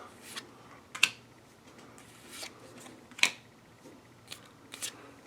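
A stack of small game cards being handled and flipped through: a soft rustle of card stock, with two sharp clicks, about a second in and a little after three seconds.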